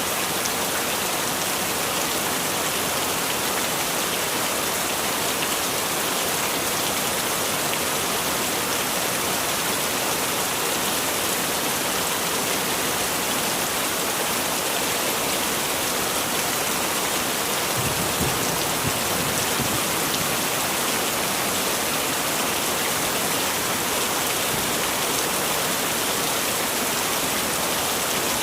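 Heavy rain falling steadily, a dense even hiss of drops, with a brief low rumble about two-thirds of the way through.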